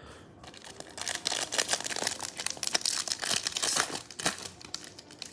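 The foil wrapper of a 2021 Bowman baseball card pack being torn open and crinkled by hand: a dense run of crackles that starts about a second in and dies away near the end.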